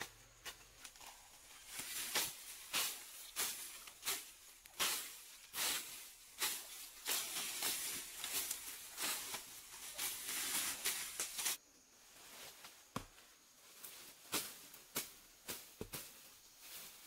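Dry leaves and grass rustling in repeated handfuls, about one to two a second, as weeds are pulled by hand from a pond bank. It stops abruptly about two-thirds of the way through, leaving fainter rustling and a few sharp clicks.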